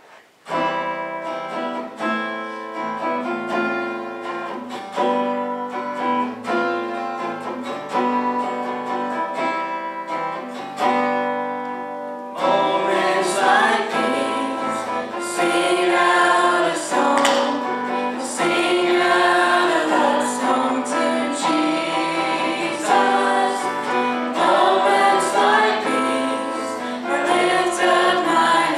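A worship song: an instrumental introduction with acoustic guitar, then, about twelve seconds in, the vocal group comes in singing, with women's voices to the fore.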